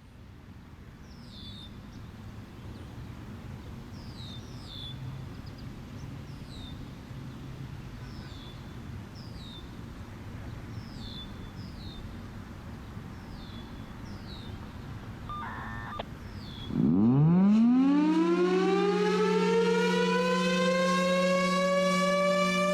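Federal Signal Thunderbolt 1000 siren starting up about seventeen seconds in: a loud wail that climbs steeply in pitch, then levels off as it comes up to speed. Before it starts, a bird chirps over a low background rumble, in repeated pairs of short falling notes.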